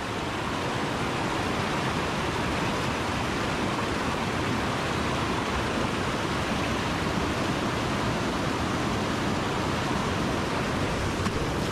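Fast, muddy mountain stream in spate, whitewater rushing over rocks close to the microphone in a steady, unbroken wash of noise.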